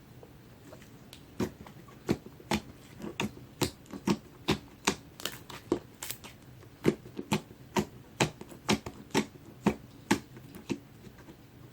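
Clear gold-glitter slime being pressed and worked by hand, giving a string of sharp, wet clicks about twice a second that start about a second and a half in and stop shortly before the end.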